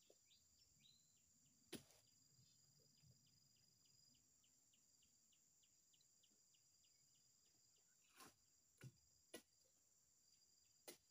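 Five sharp knocks, one about two seconds in and four close together near the end, from oil palm fruit bunches being spiked and heaved onto a lorry's load. Behind them, faint insects chirp at about three a second over a thin, steady high hum.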